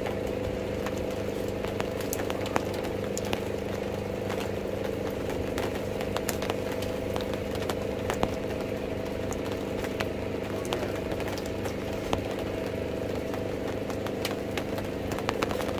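An engine running steadily with a low, even hum, with scattered sharp clicks over it.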